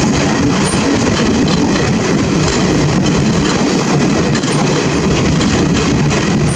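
An Indian Railways train running on the track: a loud, steady rumble and rattle.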